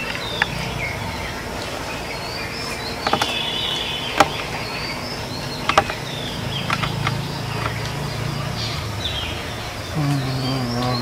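Small birds chirping repeatedly, over an insect's steady buzzing hum that comes and goes and grows stronger near the end. A few sharp cracks sound in the middle.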